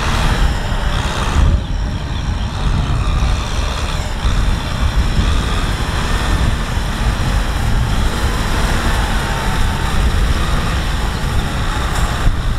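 Kubota M6040SU tractor's diesel engine running steadily as the tractor works through deep mud.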